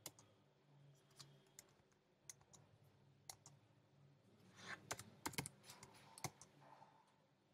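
Faint computer keyboard keystrokes: a few scattered taps, then a quicker run of them from about four and a half seconds in.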